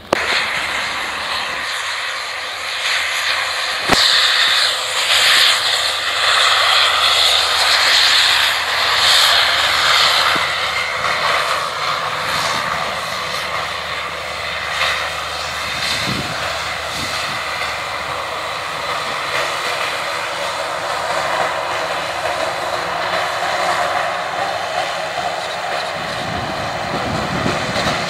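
Twin turboprop engines of a BAe Jetstream, Garrett TPE331s, running loud and steady as the aircraft rolls along the ground. The noise is loudest in the first several seconds, with a strong high hiss, then settles to an even drone.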